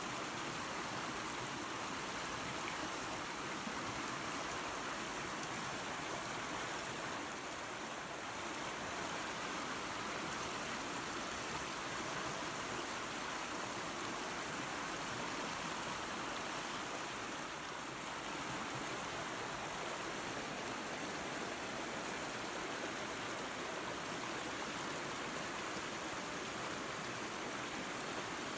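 Waterfall and creek running water: a steady, even rushing.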